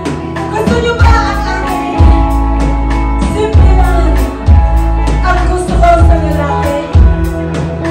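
Live rock band playing: a woman singing lead into a microphone over electric guitar, bass guitar and a drum kit keeping a steady beat.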